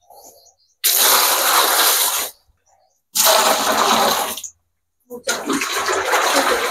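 Liquid poured in a thick stream into a plastic drum of dried cow-dung cakes, gushing and splashing as it foams up. It comes in three spells, each starting and cutting off suddenly.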